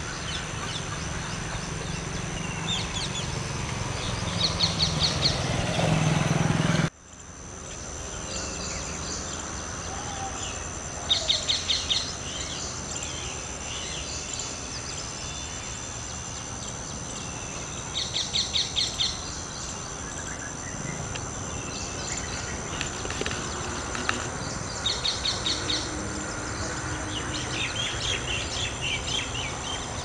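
Outdoor birdsong: one bird repeats a short, fast run of notes every several seconds, among other scattered chirps. Behind it runs a steady high insect drone. The sound drops out abruptly about seven seconds in, then returns at a lower, even level.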